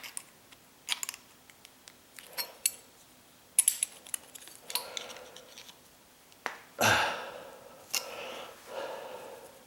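Pliers clicking and scraping on a metal door strike plate as its bent tab is worked straight: scattered light metallic clicks, then a couple of longer scraping sounds in the second half.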